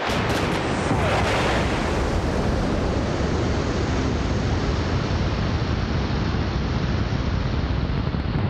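Rocket motors of a model space shuttle igniting with a sudden blast, then a steady, loud roar of rushing exhaust as it lifts off.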